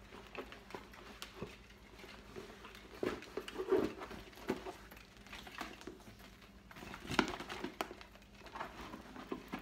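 Soft rustling, brushing and small clicks of a leather-and-suede tote bag being handled and turned over. The sounds come in short, scattered bursts, the most noticeable about three to four seconds in and again about seven seconds in.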